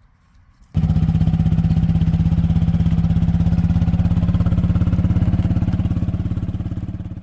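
Loud, steady engine-like drone with a fast even pulse, running at a constant speed. It starts abruptly about a second in and fades away at the end.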